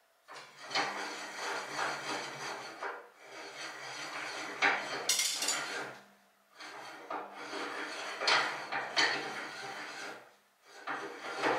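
Hand crank on an HBM 128 metal bandsaw being turned to move its adjustment mechanism: a gritty mechanical turning noise in three long bouts with short breaks between, and a brief higher hiss about five seconds in.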